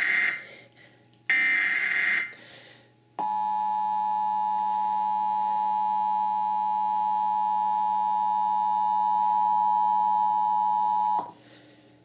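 Emergency Alert System broadcast over a TV speaker: short screeching SAME digital header bursts in the first couple of seconds, then the EAS two-tone attention signal (853 and 960 Hz together) starting about three seconds in, held steady for about eight seconds and cutting off sharply near the end.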